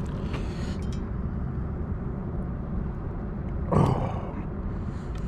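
An angler landing a hooked bass at the water's edge by hand: a steady low rumble with a few faint clicks, and one short loud burst about four seconds in.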